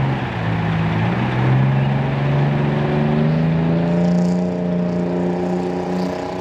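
Diesel engine of a fire department aerial ladder truck accelerating as it pulls away, its pitch rising steadily over the first few seconds and then holding.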